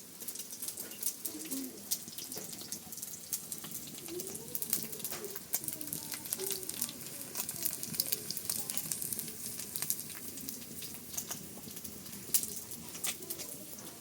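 Sizzling and crackling of food cooking on a wood-fired stove, a dense, uneven run of small pops over a soft hiss.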